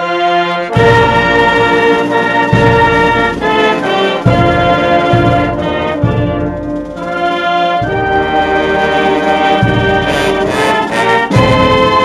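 Brass band music with trumpets and trombones, playing sustained chords that change every second or two.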